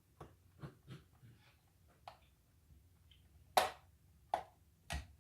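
Light plastic clicks and knocks of hair dryer housing parts being handled during reassembly: several soft taps, then a sharper knock about three and a half seconds in and two more shortly after.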